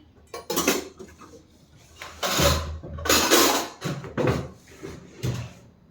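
Kitchen containers being handled and opened: a run of knocks and rustling scrapes, the loudest two about two and three seconds in, with a dull thud under the first.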